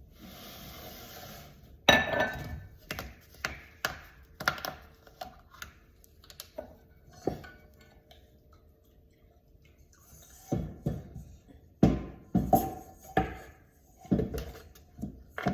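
Kitchen clatter of dishes and utensils: a short hiss, then a run of irregular knocks and clinks, thinning out in the middle and picking up again near the end.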